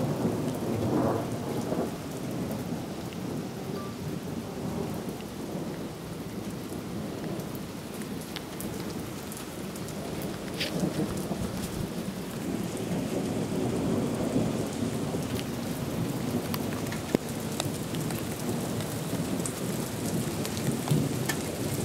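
Steady rain falling, with rolling thunder rumbling low that builds up past the middle of the stretch and then eases. A few sharp single ticks stand out.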